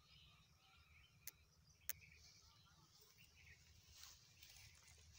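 Near silence: faint open-field ambience with scattered high chirps and a low rumble. Two sharp clicks about half a second apart come a little over a second in.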